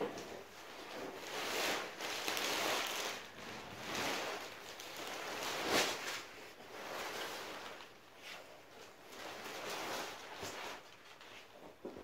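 Rustling and shuffling as a mattress is handled and carried to the bed frame, swelling and fading every second or two, with one sharper rustle about halfway through.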